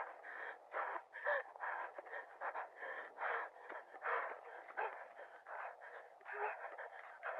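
A person breathing hard, panting in quick ragged breaths about one and a half a second, sounding thin and tinny as through a handheld camcorder's small microphone.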